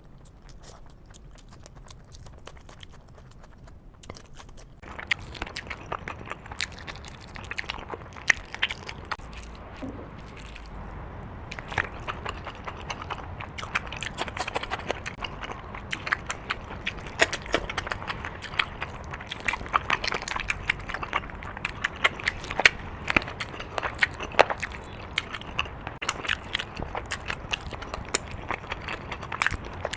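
Close-miked chewing and eating sounds: a dense run of small clicks and crackles from the mouth, growing louder about five seconds in.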